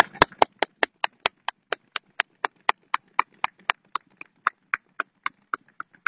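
Hand claps close to the microphone: a steady run of about four to five sharp claps a second, applause for a finished speech, growing weaker and more uneven near the end.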